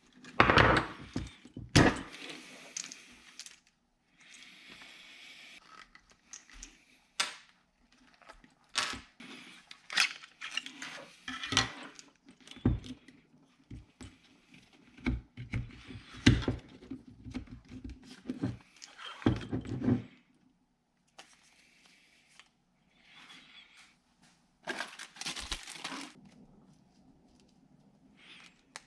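Irregular handling noise: sharp knocks and clicks mixed with rustling and scraping, with short pauses between.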